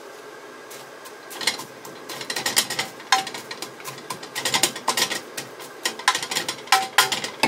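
Wooden spatula stirring sliced onions in a frying pan: irregular scraping and tapping against the pan, starting about a second in and getting busier.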